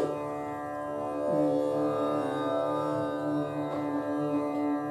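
A steady plucked-string drone accompanies a voice singing a single held note, which enters about a second in and is held steady.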